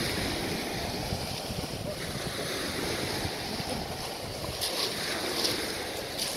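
Small waves breaking and washing up a shingle beach, with wind rumbling on the microphone.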